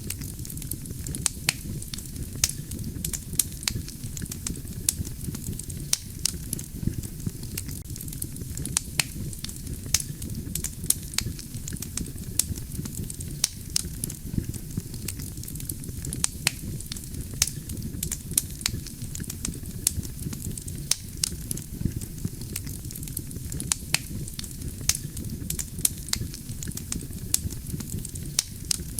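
Wood campfire burning steadily: a low, continuous rumble of flames with frequent sharp, irregular crackles and pops from the burning logs.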